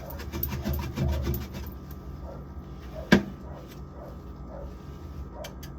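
Rubbing and light clattering as things are handled inside a refrigerator, with one sharp knock about three seconds in.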